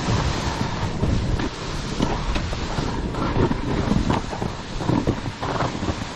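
Wind buffeting the camera microphone during a fast downhill snowboard run. The board's edge scrapes through the snow in irregular louder surges as it turns.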